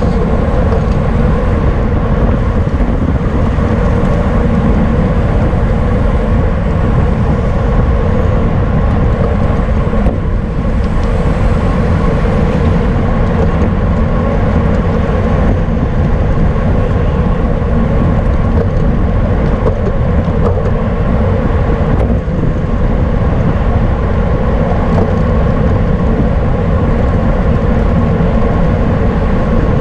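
Steady, loud wind rush and road noise from a road bicycle ridden at race speed, with low buffeting on the microphone.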